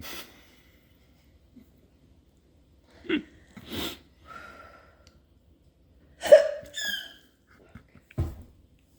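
A drunk person hiccuping several times, a few seconds apart, with short breaths between; the loudest hiccup comes about six seconds in.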